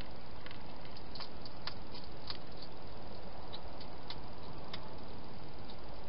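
Wild hedgehog eating from a bowl inside a plastic feeding box: irregular crunching clicks from the first five seconds on, over a steady hiss.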